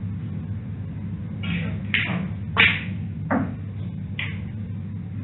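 Snooker balls clicking as a shot is played: the cue strikes the cue ball and the balls knock together, about five sharp clicks over roughly three seconds, the loudest about two and a half seconds in, over a steady low hum.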